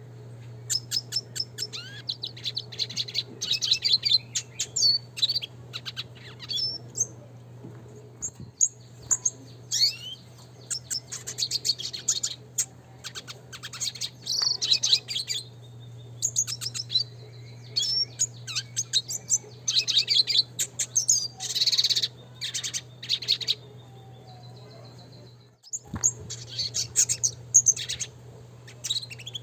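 Red siskin singing: repeated phrases of rapid, high twittering and trilled notes, separated by short pauses, over a steady low hum.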